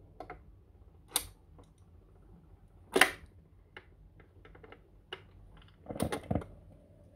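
1960s HMV record player's autochanger mechanism clicking and clunking through its start cycle: a sharp clunk about three seconds in as the 45 rpm single drops onto the platter, light ticks as the tonearm swings across, then a cluster of knocks near the end as the arm sets down at the record's edge.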